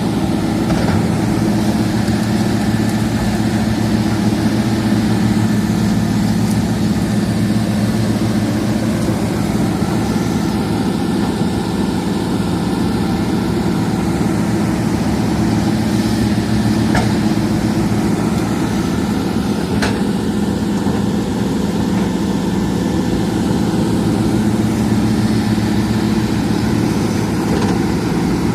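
Excavator's diesel engine running steadily at a constant pitch, with a couple of short sharp clicks late on.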